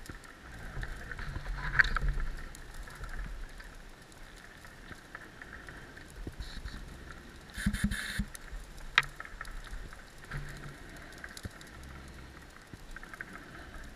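Underwater ambience picked up by a dive camera: a steady fine crackling, with recurring low muffled swells. There is a short burst of noise about eight seconds in and a single sharp click just after it.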